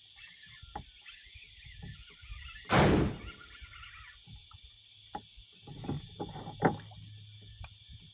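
Steady high drone of insects, with one short, loud burst of noise about three seconds in and a few light knocks later on.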